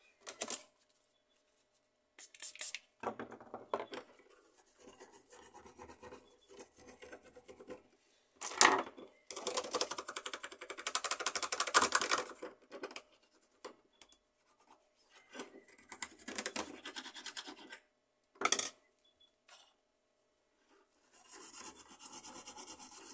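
Scraping and rubbing on the heating element of an HP LaserJet 1300 fuser, cleaning off old toner. It comes in several spells, the longest and loudest about ten seconds in, with a few sharp knocks between them.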